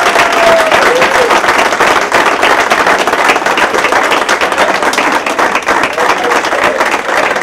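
Audience applauding: many hands clapping steadily, with a cheer or shout carrying over the clapping in the first second or so.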